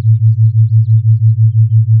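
Binaural-beat meditation tone: a steady low hum throbbing evenly about five times a second, with faint high chirps above it.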